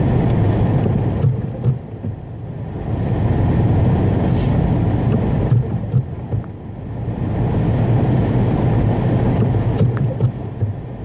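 Car driving on a snowy road: a steady low rumble of engine and tyres that eases off briefly twice before building again.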